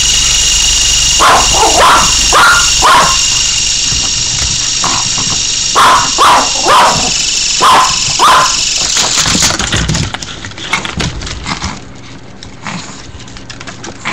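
Chihuahua barking sharply in two quick bursts at a toy RC helicopter whose electric motor gives a steady high whine. The whine stops about ten seconds in, leaving only faint irregular clicks.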